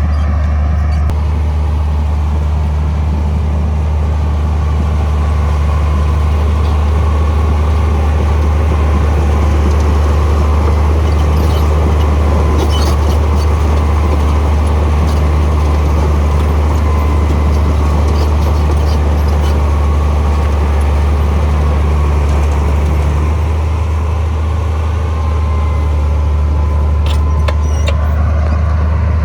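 Komatsu bulldozer's diesel engine running steadily with a deep, constant drone, joined a few times by short metallic clicks or clinks.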